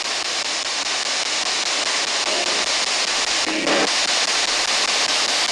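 Spirit box (sweeping radio scanner) hissing with steady static, with two brief voice-like snatches about two and three and a half seconds in.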